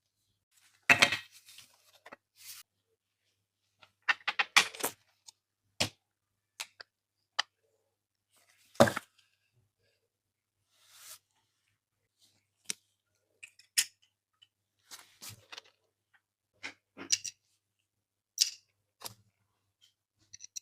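Unboxing handling sounds: scattered clicks, taps and short crinkles of small plastic toy pieces and their packaging being picked up and set down, with quiet gaps between.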